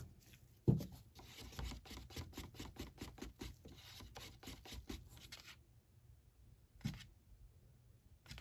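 A paper paint cup knocked down on a table. Then about five seconds of quick, light clicks and scrapes, roughly five a second, from handling the cup, and another single knock near the end.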